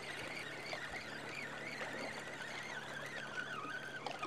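Fishing reel being cranked to bring in a small hooked fish: a faint whirring whine that wavers in pitch with the turns and steadies near the end.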